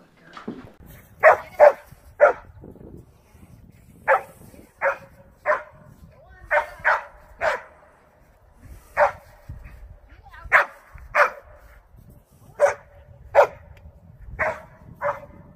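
A dog barking repeatedly: about seventeen short, sharp barks at uneven intervals, several of them in quick pairs.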